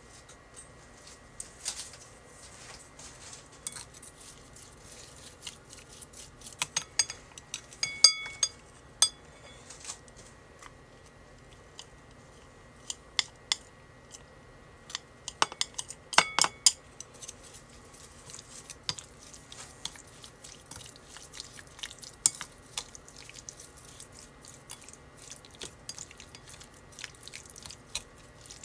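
Wooden chopsticks clicking and scraping against a ceramic bowl while raw sliced beef is mixed with its marinade, garlic and shallot. Irregular small taps throughout, with a few brighter ringing knocks on the bowl in two clusters partway through.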